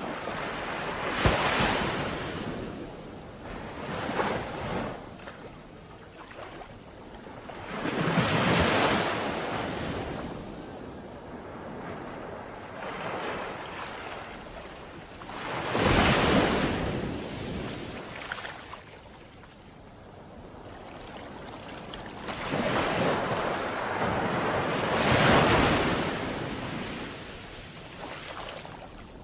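Sea waves breaking and washing in, a steady rush that swells and falls back in repeated surges every few seconds, three of them noticeably louder than the rest.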